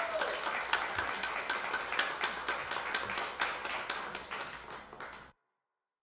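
Audience clapping, fading over the last seconds and cutting off suddenly about five seconds in.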